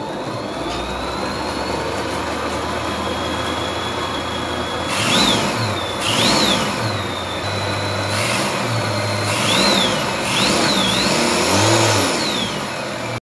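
Electric motors spinning a belt-driven 3D-printed ABS clutch with a cork friction plate: a steady high whine, then from about five seconds in the pitch dips and recovers several times with louder rushing noise as the drive is loaded.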